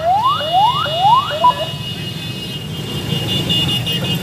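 Police car siren sounding in short rising whoops, about two a second, that stop about a second and a half in. A steady high-pitched tone carries on over a low rumble of engines.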